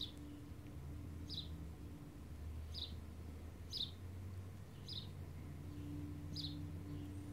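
A bird chirping: six short, high, slightly falling chirps repeated about once a second, over a low steady hum.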